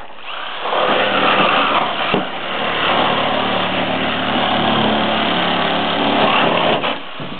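Electric power tool cutting through the sheet-metal body of an old Nissan Sunny at the roof pillar, a steady motor whine with a metal-cutting hiss. It starts just after the beginning and cuts off near the end.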